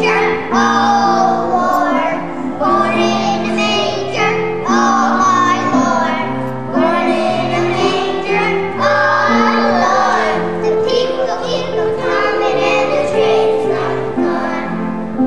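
Young children's choir singing together in short phrases, with steady piano accompaniment underneath.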